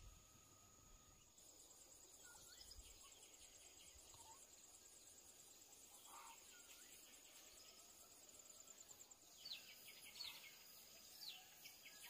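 Near silence with faint outdoor ambience: a high, rapidly pulsing insect trill, then a run of short, falling bird chirps in the last few seconds.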